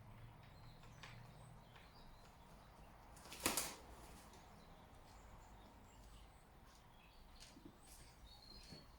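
Faint, high bird chirps now and then, with one brief, louder rustle about three and a half seconds in.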